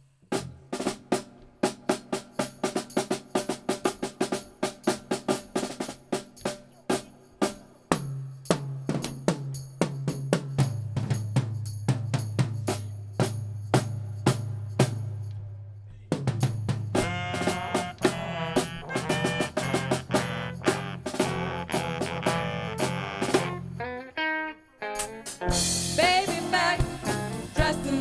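A live band playing an instrumental intro. A drum kit groove of snare, rimshots and bass drum plays alone at first, a bass line joins about eight seconds in, and more instruments build up in the second half.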